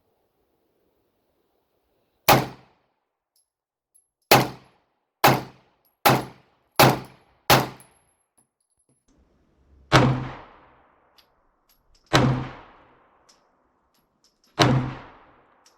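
Nine handgun shots: a single shot, a quick string of five about one a second, then three slower shots a couple of seconds apart, each with a longer ringing tail.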